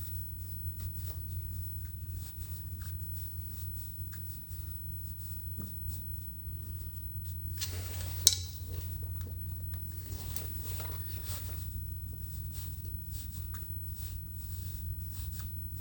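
Light clicks and scraping of small metal parts worked by hand as a threaded oil-jet tube is wound into the shaper's casting, over a steady low hum, with one sharper click about eight seconds in.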